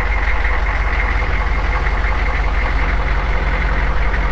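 Humvee's diesel engine idling steadily while the front wheels are steered; a low hum joins about a second in.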